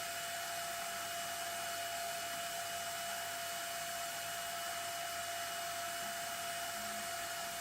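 A machine running steadily: an even whirring hiss with a constant high whine over it, and no cutting or knocks.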